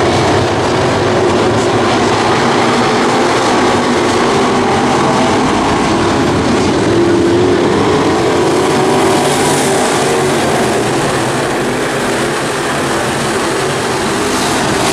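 Several race-car engines running together at speed, a loud, steady mass of engine noise with pitch rising and falling slightly as the cars go around the track.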